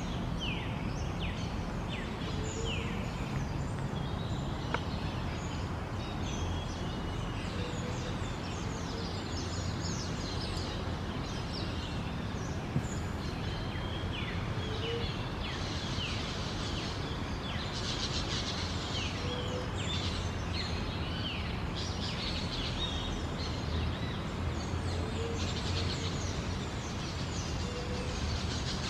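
A chorus of small forest birds chirping and whistling, many short falling notes, thicker in the second half, with a few faint low calls now and then. Under it runs a steady low rumble of background noise.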